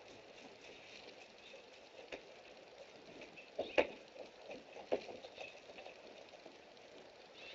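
Dogs moving about on a wooden deck, with a few light knocks and taps from their paws and claws on the boards, loudest about halfway through, over a faint steady outdoor hiss.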